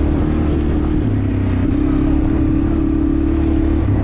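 ATV engine running under way, its note sagging about a second in, then rising again and holding steady before dropping off near the end.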